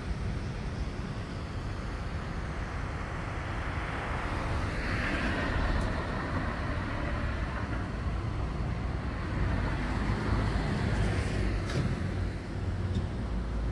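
Road traffic noise: a steady low rumble, with a vehicle passing about five seconds in.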